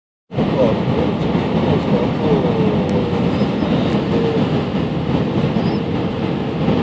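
Steady cabin noise inside an Airbus A319-111 airliner on its approach to landing: the rush of air past the fuselage together with the hum of its CFM56 turbofan engines. The noise cuts in suddenly a moment in and then holds level.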